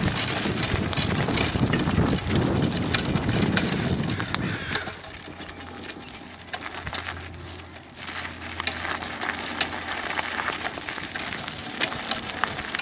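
A Chalo dog sulky rolling behind a trotting dog over a dirt and gravel trail: a steady stream of crunching, clicking and rattling from the wheels and rig, easing off for a few seconds in the middle before picking up again.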